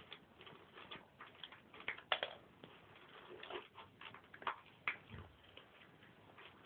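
Two cats eating from a shared food bowl: irregular small clicks of chewing and of food against the bowl, a few a second, with a soft low bump about five seconds in.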